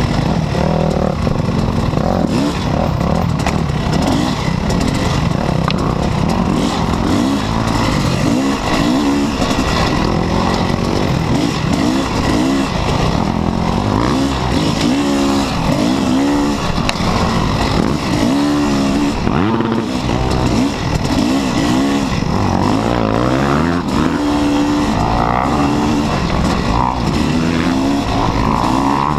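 Yamaha YZ250 single-cylinder two-stroke dirt bike engine heard from on the bike, revving up and dropping back over and over as the throttle is opened and closed through the trail.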